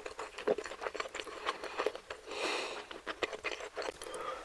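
Close-miked chewing of a mouthful of soft steamed dumplings: wet mouth clicks and smacks throughout, with a brief hiss about halfway through.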